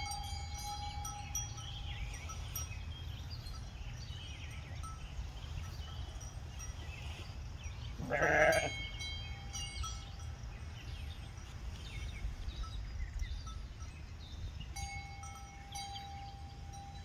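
A hair sheep bleats once, for about half a second, about eight seconds in, over a steady low rumble.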